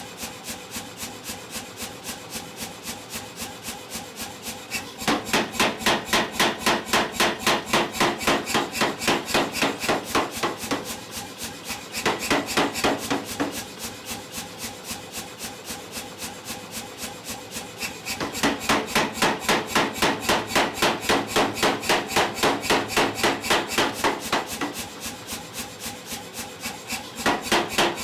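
Power hammer forging a chunk of jackhammer bit, striking about four to five times a second: light strokes at first, then several runs of much heavier blows lasting a few seconds each, with lighter strokes between them.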